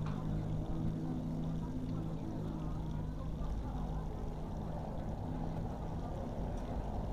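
Outdoor town-square ambience: a steady low engine hum that fades after about three seconds, over a constant rumble of background traffic and faint distant voices.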